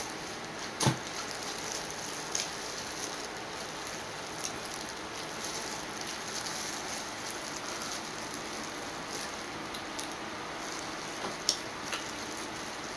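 Gloved hands peeling boiled crawfish: a few sharp cracks and clicks of shell and crinkling plastic gloves over a steady hiss, the loudest crack about a second in and two more near the end.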